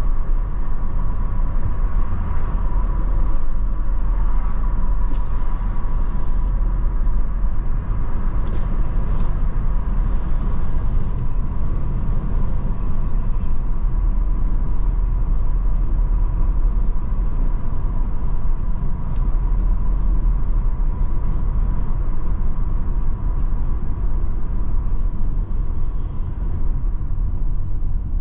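A car driving along a paved road: a steady low rumble of engine and tyres that does not let up.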